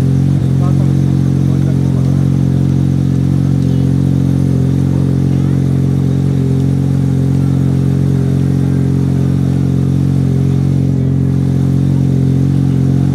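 Modified Mazda RX-7 FD's turbocharged 13B two-rotor rotary engine idling at a steady, even pitch.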